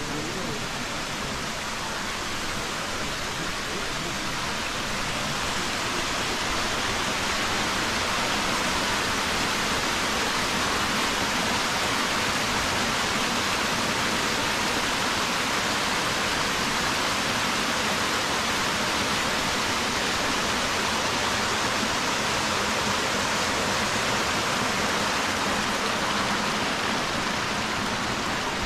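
Small forest waterfall cascading over rocks into a creek: a steady rush of water that swells a little over the first several seconds and then holds even.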